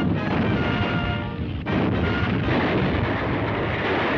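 Orchestral score with held brass chords over a heavy, continuous rumble of crashing rubble. About a second and a half in, the chords drop away and a louder rumble takes over.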